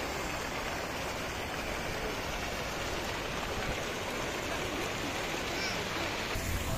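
Steady rushing and splashing of water from a large public fountain.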